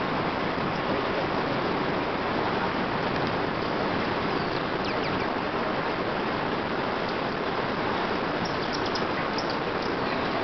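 Steady rushing of water, even and unbroken, with a few faint high chirps of small birds about halfway through and again near the end.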